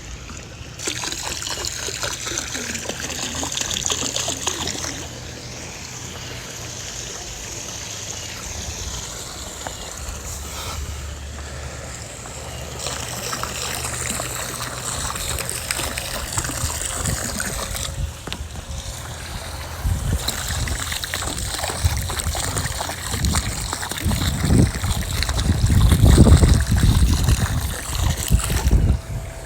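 Water splashing and trickling, with heavy low rumbling knocks growing stronger in the last third.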